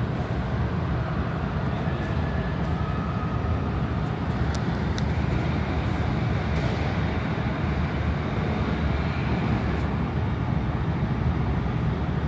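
Steady low rumble of a running vehicle heard from inside it, with a few faint clicks about four to five seconds in.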